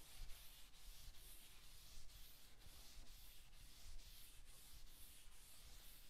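Faint, even back-and-forth scrubbing of a pad of 0000 steel wool, wet with furniture wax, rubbed along the grain of a wooden cabinet top.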